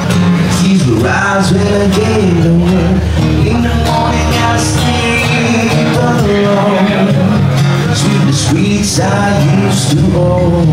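Music with a singing voice.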